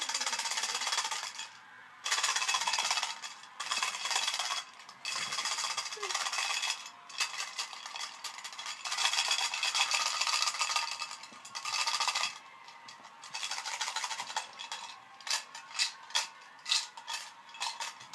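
Small tin of breath mints shaken hard, the mints rattling inside it. It goes in runs of a few seconds with short pauses, and near the end in separate short shakes.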